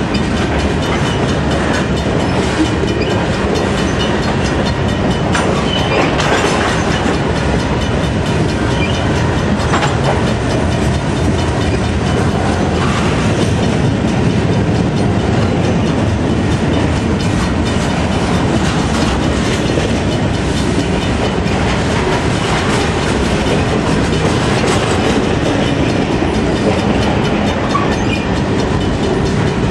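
Mixed freight cars of a CN train rolling past at close range: a steady, loud rumble of steel wheels on rail, with frequent clicks as the wheels pass over rail joints.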